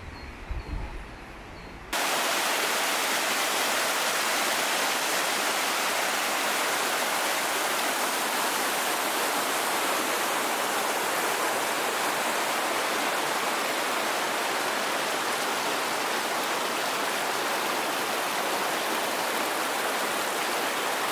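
Spring-fed stream rushing over mossy rocks near its spring outlets: a steady, full rush of water that cuts in abruptly about two seconds in, after a quieter low rumble.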